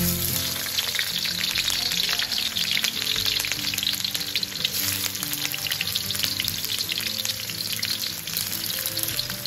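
Sliced red onion sizzling in hot oil in a wok, a dense crackle that starts suddenly as the first slices go in, with more slices added later.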